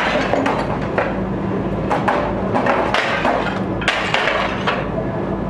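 Repeated sharp knocks and clattering from firefighters working on a ladder against a building facade, over a steady low engine hum.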